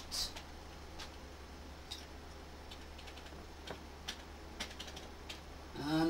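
Computer keyboard keys pressed now and then, a scattering of single soft clicks a second or so apart, over a low steady hum.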